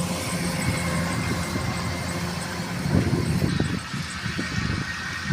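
Rice combine harvester engine running steadily while harvesting. The hum drops off somewhat about three and a half seconds in.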